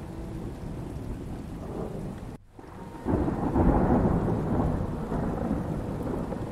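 Recorded rain ambience: steady rain that cuts out briefly about two and a half seconds in, then comes back with a low thunder rumble that swells up and slowly dies away.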